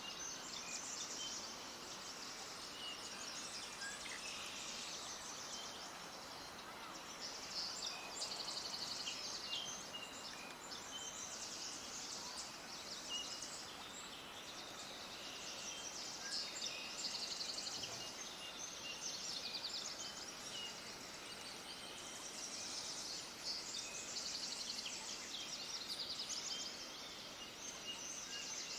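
Many small birds chirping and singing in dense, overlapping high-pitched bursts that swell and fade every few seconds, over a steady background hiss.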